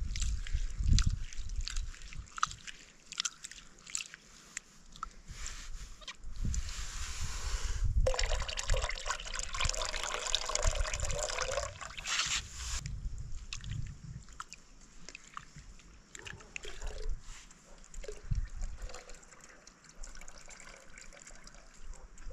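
Water pouring and trickling for about five seconds, starting about eight seconds in, amid scattered knocks and handling clicks.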